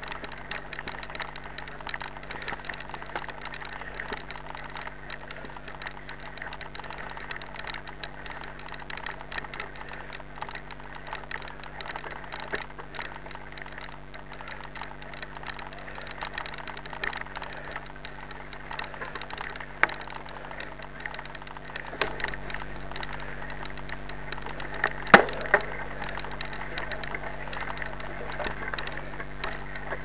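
Mountain bike riding over a dirt and grass trail: steady tyre and drivetrain noise with a running rattle of small clicks, and a few sharper knocks in the second half.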